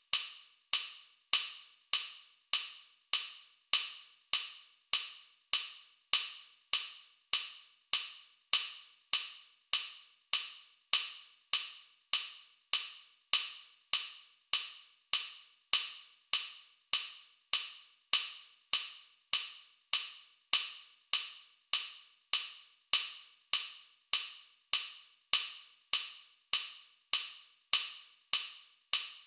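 Metronome click track at 100 beats per minute: short, sharp clicks at a perfectly even beat, about five every three seconds.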